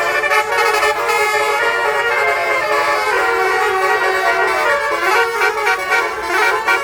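Basuri melodic bus horns playing tunes: many pitched horn notes changing quickly.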